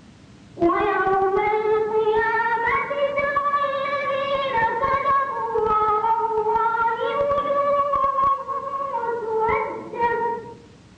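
A boy's high voice reciting the Quran in a melodic, chanted style: after a short pause he holds one long phrase for about ten seconds, its pitch stepping slowly up and down with ornaments. He breaks off for a breath near the end.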